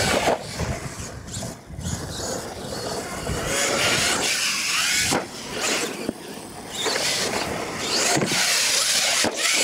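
Radio-controlled monster truck's motor whining as it revs up and down in short bursts, with its tires scrabbling on dirt.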